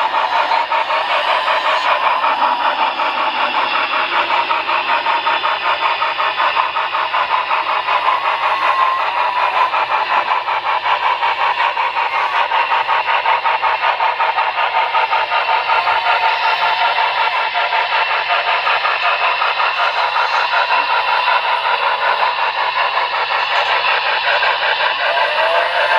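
Model Union Pacific 4-8-4 steam locomotive and freight train running along the layout track: a steady, thin running sound with a fast, even rhythmic clatter.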